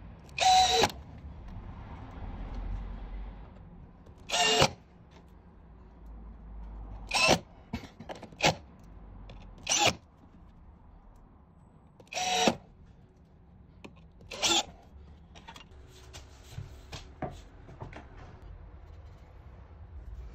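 Cordless drill-driver driving screws through a steel mounting plate into a wooden frame, its motor running in about seven short bursts over the first fifteen seconds. Fainter clicks and handling noise follow.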